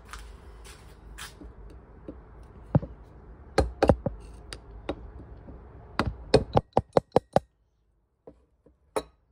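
Screwdriver scraping and chipping caked corrosion scale out of a Yanmar 2QM15's cast rear heat-exchanger housing: a low scraping at first, then sharp knocks, with a quick run of about eight knocks around six to seven seconds in. The crud is built-up debris from spent zinc anodes that had jammed the raw-water housing, which the owner links to the engine overheating.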